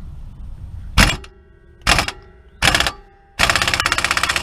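Impact wrench driving an inch-and-a-quarter 12-point socket on a rear differential pinion nut. It fires three short bursts, each followed by a metallic ring from the socket, then hammers steadily for about a second and a half near the end as the nut starts to move.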